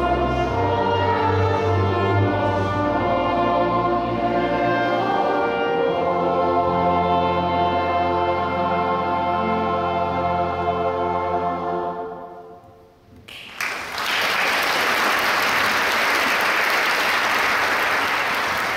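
Mixed choir and string ensemble singing and playing the close of a piece, with long held chords that die away about twelve seconds in. After a brief hush, the audience starts applauding about a second later, and the clapping holds steady.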